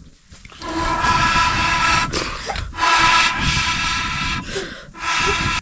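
Pressure cooker whistle blowing: a steady whistle of several high tones over a hiss of steam. It runs in three stretches broken by short pauses and cuts off abruptly at the end.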